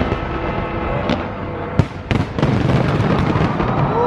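Large fireworks display: a continuous crackle over a dense rumble, broken by sharp bangs, the loudest a little under two seconds in.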